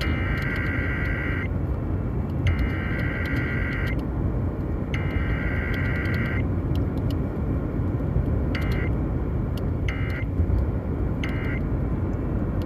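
Emergency Alert System digital data tones over broadcast radio: three long, evenly spaced bursts of the warbling SAME header code, then three short bursts, the end-of-message code. A steady low rumble of background noise runs underneath.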